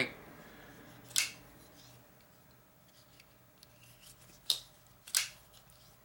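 Artisan Cutlery Zumwalt flipper knife clicking as its blade is flipped open and snapped shut: three sharp metallic clicks, one about a second in and two close together near the end.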